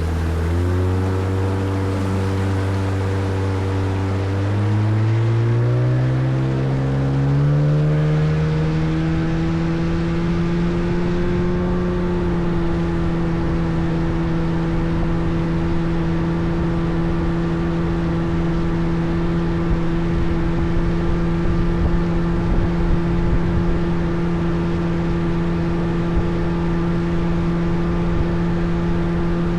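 A small boat's motor speeds up over several seconds, its pitch climbing step by step, then runs steadily at cruising speed. An even rushing noise runs beneath it.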